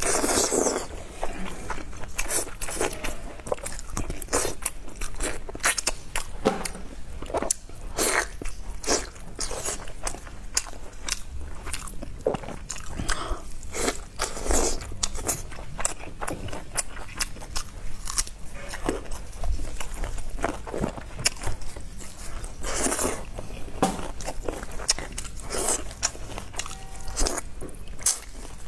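Close-miked eating of saucy braised beef ribs: repeated biting and chewing of meat pulled off the bone by mouth, with many irregular wet mouth clicks.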